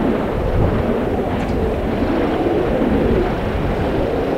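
A steady, deep rumbling roar from an erupting volcanic vent as lava surges and spatters inside the crater, swelling and easing in slow waves.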